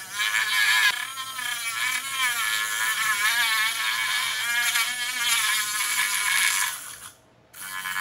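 High-speed rotary tool with a small cutoff disc cutting along the glued seam of a plastic AC adapter case. Its whine wavers up and down in pitch as the disc bites and eases off, and cuts out for a moment about seven seconds in before starting again.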